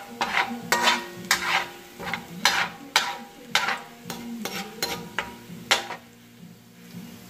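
Metal spatula scraping and knocking against an aluminium wok in about a dozen quick strokes while stirring chopped pieces frying in it; the strokes stop about six seconds in.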